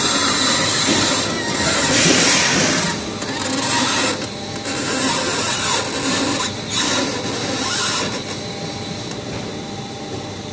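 Industrial machinery running: a steady mechanical clatter and hiss with a faint high whine, easing off somewhat in the second half.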